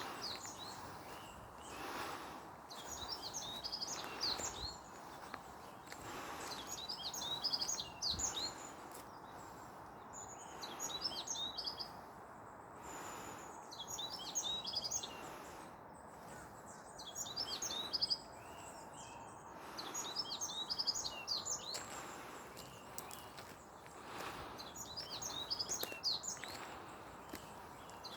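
A songbird singing repeated short phrases of quick, high chirping notes, a phrase every few seconds, over a steady outdoor background hiss.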